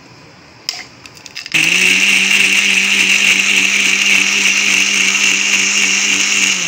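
Electric mixer-grinder starting about a second and a half in after a few light clicks, spinning up quickly and running steadily as it blends pomegranate seeds with ice and water, then beginning to wind down at the very end.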